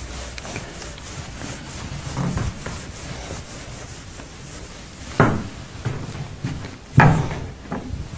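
Whiteboard eraser rubbed back and forth across a whiteboard, followed by two sharp knocks about five and seven seconds in, the second the louder, as things are set down on the desk.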